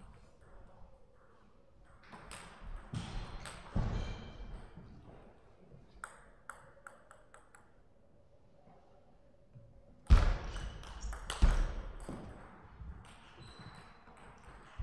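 Celluloid-type table tennis ball clicking: a series of light bounces while the serve is readied, then a short rally of paddle hits and table bounces about ten seconds in, with a few loud knocks among them.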